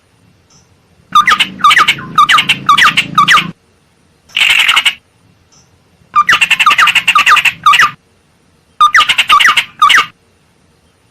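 Tit-babbler (ciung air) lure call: runs of quick, loud repeated notes of five or six strokes each, separated by short silences, with one harsh chattering burst in the middle.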